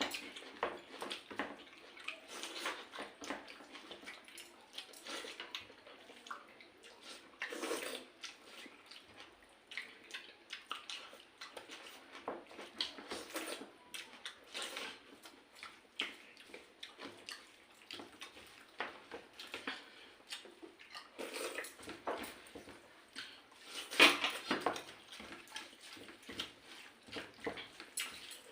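Close-up wet eating sounds of pakhala, cooked rice soaked in water, being mixed and scooped by hand and chewed. Small splashes, smacks and slurps come irregularly, with one louder burst late on.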